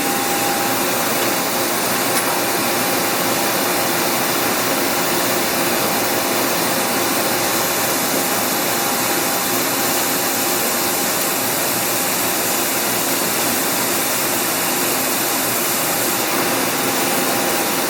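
DeVlieg horizontal jig mill running under power: a steady whooshing machine noise with a constant thin whine.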